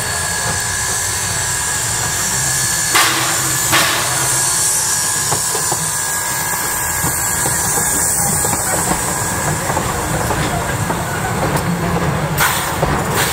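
Steam locomotive passing with a steady hiss of steam, then its passenger coaches rolling by, wheels clicking over the rail joints. There are sharp knocks about three seconds in, twice, and again near the end.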